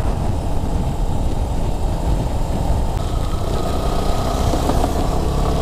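Motorcycle riding at speed: a steady, loud rush of wind and road noise over the running engine.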